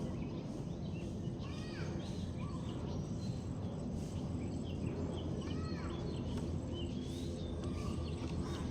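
Small birds chirping repeatedly in short rising-and-falling calls over a steady low rumble.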